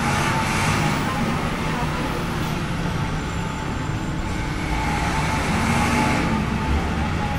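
Steady road traffic on a busy city street: vehicles running past in a continuous wash of noise.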